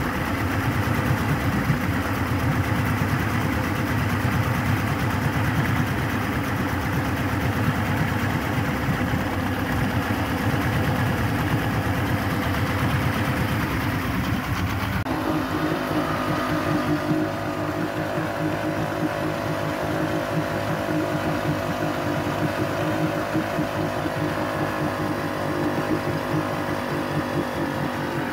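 2001 Yamaha OX66 225 HP V6 two-stroke outboard running steadily on a freshwater flush after a vinegar descaling flush, run to check the temperature of each cylinder bank. About halfway through, its sound changes abruptly: the deep low end drops away and clearer steady tones come through.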